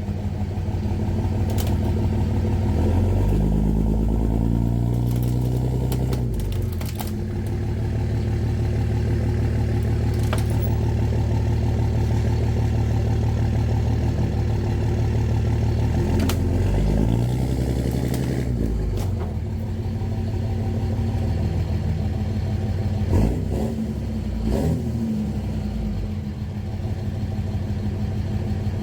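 Dually pickup truck's engine running and revving, rising in pitch twice as the truck pulls over, with a few sharp knocks in between.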